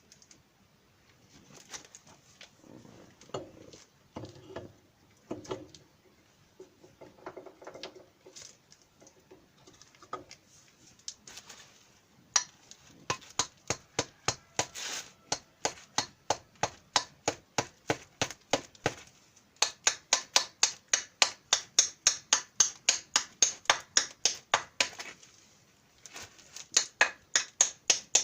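Hand tools working on a power tiller's wheel hub: scattered light knocks and handling at first, then from about twelve seconds in a fast, even run of sharp clicks, about four a second, pausing briefly twice.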